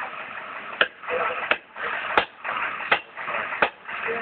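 Sharp mechanical clicks repeating at an even pace, about one every 0.7 seconds, over a steady rushing noise.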